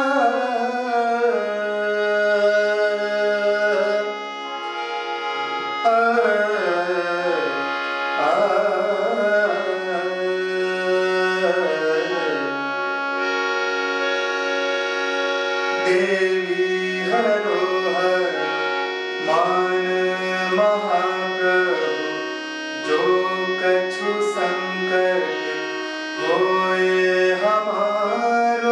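Male voice singing a Hindustani classical melody in long, ornamented gliding phrases over the steady held notes of a harmonium. The voice pauses now and then while the harmonium carries on.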